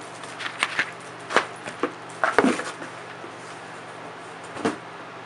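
Cardboard box and plastic packaging handled by hand while unpacking: irregular crinkles, rustles and light knocks, the loudest about two and a half seconds in, over a faint steady hum.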